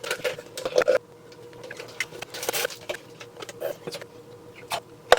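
Kitchen handling noises: irregular knocks, clicks and clinks of dishes and glasses being moved about during breakfast preparation, with a sharp knock right at the end. A faint steady hum sits underneath.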